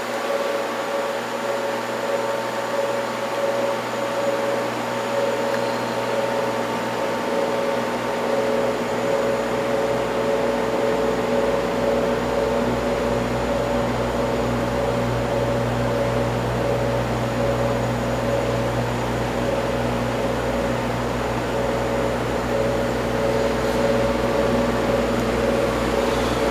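Steady hum and fan noise of indoor grow-room equipment under the grow-light hoods, unchanging, with several held pitches in the hum.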